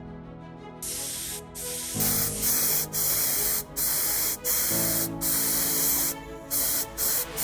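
Spray adhesive being sprayed for upholstery work, a loud hiss that starts about a second in and comes in repeated bursts with short breaks between them, over background music.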